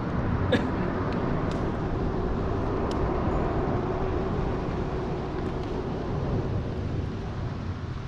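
Steady rumble of road traffic crossing a bridge overhead, with a few faint clicks in the first three seconds.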